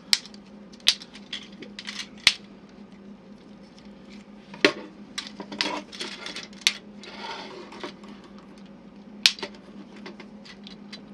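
Hard plastic toy motorcycle parts clicking and snapping as the Kamen Rider Wizard Machine Winger bike is split apart and folded into its flying form: about a dozen sharp, irregular clicks, with a short scraping rustle a little after the middle.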